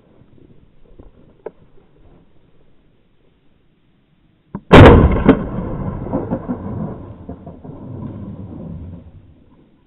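A single shotgun shot about four and a half seconds in, with a second, fainter crack half a second later; the report rumbles on for about four seconds before dying away.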